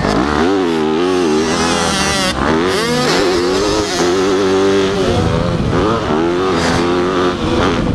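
Yamaha motocross bike's engine revving up and down, its pitch rising and falling several times under throttle, heard from the rider's helmet camera.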